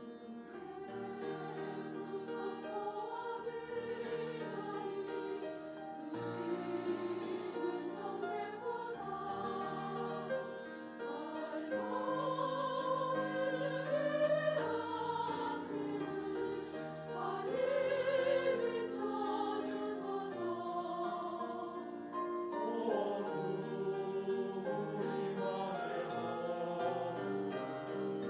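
Church choir singing an anthem, many voices in harmony, growing louder partway through.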